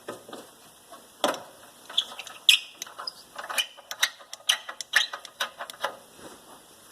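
Ratcheting wrench clicking in irregular runs, with sharp metal clinks, as it works a mounting bolt on an air conditioner's sealed unit (compressor). The clicking starts about a second in.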